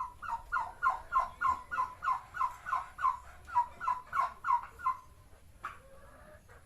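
Poultry calling: a steady series of about fifteen short, evenly spaced clucking notes, roughly three a second, that stops about five seconds in.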